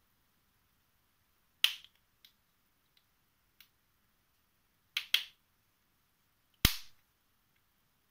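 Stiff folded paper origami pieces being worked by hand: a few sharp, crisp snaps, a close pair near the middle and the loudest near the end, with faint ticks between.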